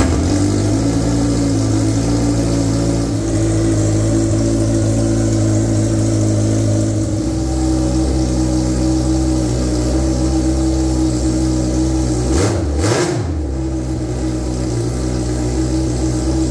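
Yamaha APEX four-cylinder four-stroke snowmobile engine, mounted in a Kitfox IV, running at a steady idle just after its first start. Its tone shifts about seven seconds in. About twelve seconds in, its speed dips briefly and comes back up.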